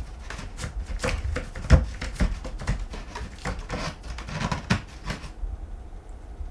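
A cat's claws scratching and scraping at a cardboard scratching structure, a quick irregular run of scrapes and knocks with one sharper knock a little under two seconds in, stopping about five seconds in.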